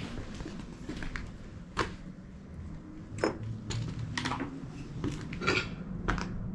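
Footsteps crunching and clinking through loose debris on a rubble-strewn floor: a handful of short, sharp knocks at irregular intervals.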